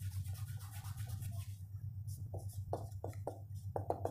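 Felt-tip marker writing on a whiteboard: a run of short squeaky strokes in the second half, over a steady low electrical hum.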